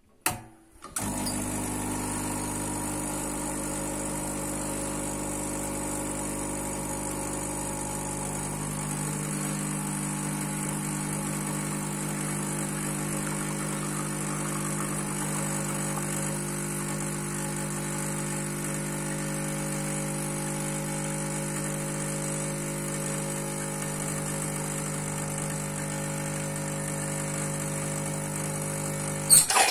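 ECM Puristika espresso machine's pump running steadily while it pulls an espresso shot. It starts with a click about a second in and stops with a click near the end, a shot of about 29 seconds.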